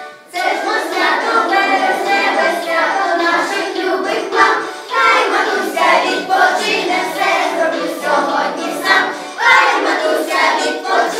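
A class of young children singing a song together in unison, after a brief pause at the very start.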